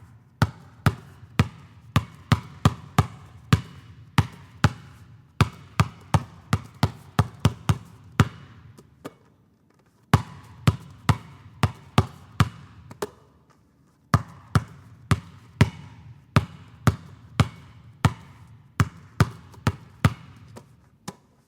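Basketball dribbled on a gym floor, sharp bounces at about two a second with the hall's echo trailing each one, stopping briefly twice before picking up again.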